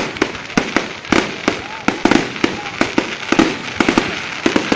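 Aerial fireworks display going off: sharp bangs several a second at uneven spacing over a continuous crackle, with crowd voices underneath.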